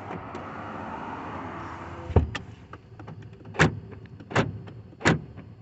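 Dodge Ram 1500 passenger power window motor running for about two seconds, ending in a thump as the glass hits its stop, showing the newly replaced window switch now works. Then four sharp clicks follow about a second apart.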